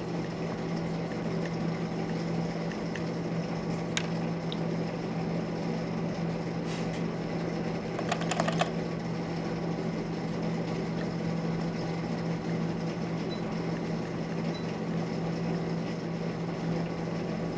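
A steady low electrical or mechanical hum under background hiss, with a few faint clicks and a brief squeak about eight seconds in.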